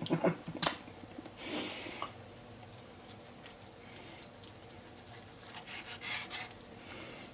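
A knife cutting into a bacon-wrapped stuffed tomato on a wooden cutting board. A sharp click comes just over half a second in, then a short scrape of the blade against the board, then faint soft cutting sounds.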